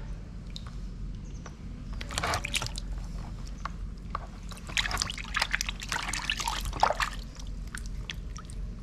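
Water splashing and trickling in a plastic basin as hands scoop and rub water over a baby monkey being bathed. There is a short bout of splashing about two seconds in and a longer one from about five to seven seconds.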